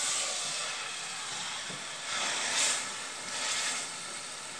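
A whole seasoned pork leg sizzling in hot lard in a thick hammered-aluminium pot, a steady hiss of meat searing in fat that swells briefly a couple of times.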